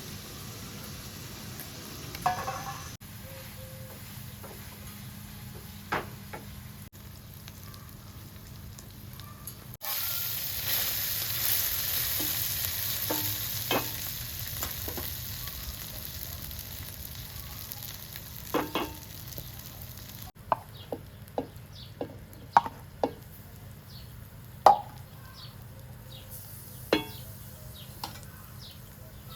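Food frying in a pan. It sizzles, with a loud hiss for about ten seconds in the middle, while a utensil stirs the food and clicks against the pan, with the clicks coming more often near the end.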